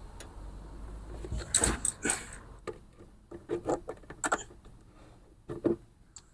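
A few scattered light clicks and knocks, about half a dozen, from handling and fitting an inline fuel shutoff valve onto the fuel line.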